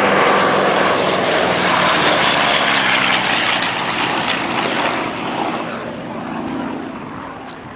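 Vought F4U Corsair's Pratt & Whitney R-2800 radial engine and propeller passing by, mixed with a smaller high-wing propeller plane flying alongside. The drone is loudest at the start and fades steadily as the planes move away.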